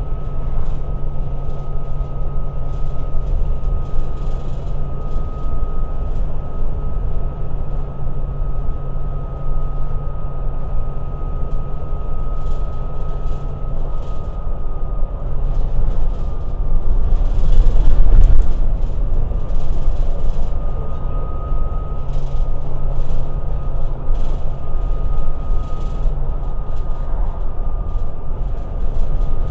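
Cabin noise of a moving Volvo B9TL double-deck bus: its six-cylinder diesel engine running under way with a low hum, a steady high whine and road rumble. The noise swells to its loudest a little past halfway, then settles back.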